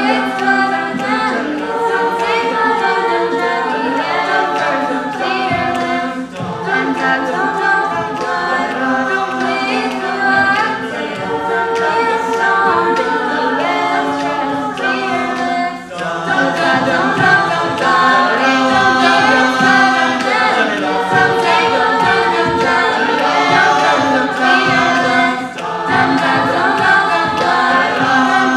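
Mixed-voice a cappella group singing: a female lead voice over close vocal harmonies and a held bass line, with no instruments. The singing grows louder about halfway through.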